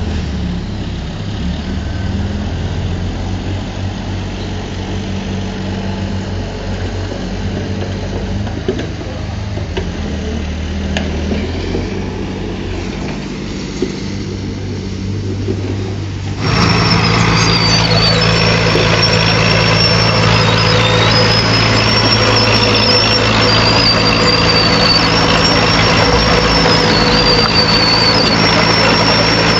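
Heavy earthmoving machine's diesel engine running steadily. Just past halfway the sound gets suddenly louder and a high, wavering squeal joins it.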